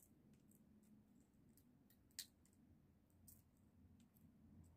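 Faint, scattered clicks of roasted sunflower seed shells being cracked and peeled apart by fingers, with one sharper crack about two seconds in.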